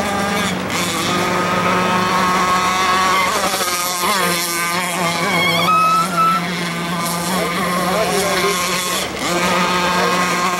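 Model motorboat engine running out on the water, a steady drone whose pitch rises and falls as the boat speeds about.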